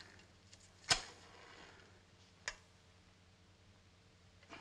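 A few sharp clicks from a cigarette case and smoking things being handled while a cigarette is taken out and lit: one loud click about a second in, a fainter one midway, and two more near the end, over a faint steady hum.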